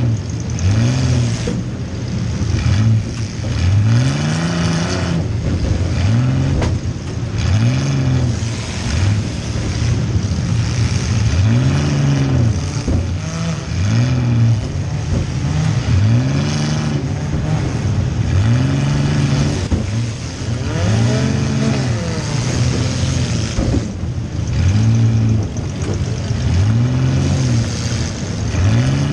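Compact car's engine revving up and falling back again and again, about every one to two seconds, heard from inside the car.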